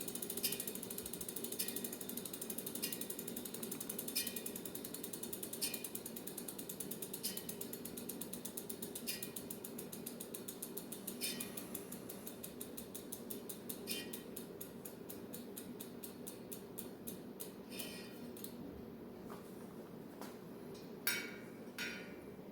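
Bicycle freewheel hub pawls ratcheting as the spun wheel coasts, a rapid run of clicks that slows down as the wheel loses speed. A light tap comes about once per turn and also slows; it is where the rim's last small bend brushes the zip-tie guide. Two sharper clicks come near the end.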